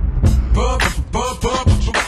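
Hip hop track playing: a bass-heavy beat, with a rapper's voice coming back in about half a second in.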